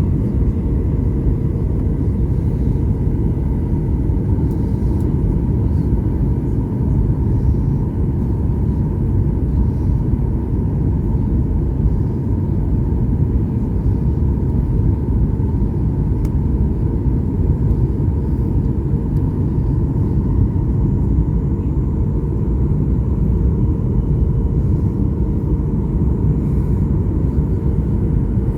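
Steady rumble of a jet airliner heard from inside the passenger cabin, with its engines and airframe running and a faint steady hum riding on top.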